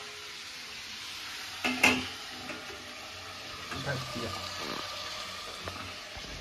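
Potato pieces frying in oil in a kadhai on a gas burner, a steady sizzle. About two seconds in there is one sharp metal clank as a steel lid is handled and set over the pan to cover it.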